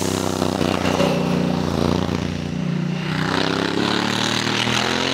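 Honda Africa Twin Adventure Sports motorcycle's parallel-twin engine running on the road through bends. The engine note eases off in the first half, then climbs again as it accelerates.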